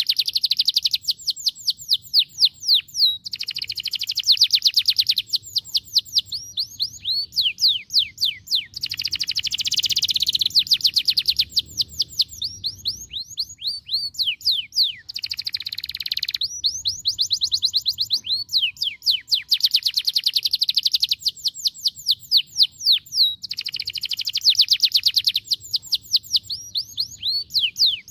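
Domestic canary singing a continuous song of rapid trills, each phrase a fast run of repeated sweeping notes lasting a few seconds, alternating with buzzier rolling passages.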